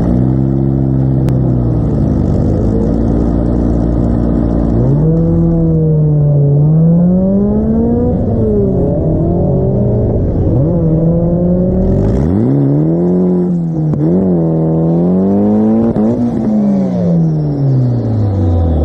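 Car engine idling with a slight waver, then revved up and down repeatedly in a series of rising and falling blips, heard from inside the car.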